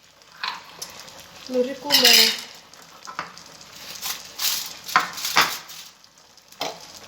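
Metal utensils clinking and scraping against a cooking dish in a run of short, separate strokes.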